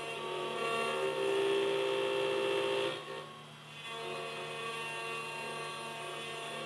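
Mini CNC router with an 800 W spindle milling an aluminium workpiece turned on its four-jaw chuck rotary axis: a steady machine whine of several tones that change pitch as the axes move, dipping briefly about halfway through before picking up again.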